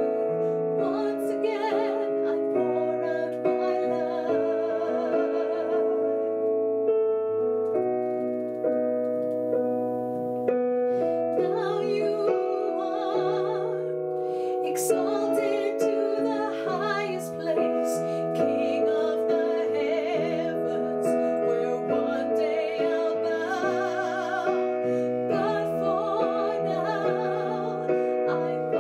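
A woman singing a slow worship song with vibrato, accompanying herself on a digital stage piano with sustained chords.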